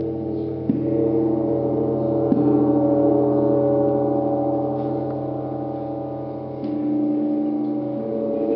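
Small tam-tam gong made of 2 mm sheet with folded, wavy edges, struck every few seconds with a felt mallet. Its wash of many overlapping tones rings on without a break and swells again with each stroke.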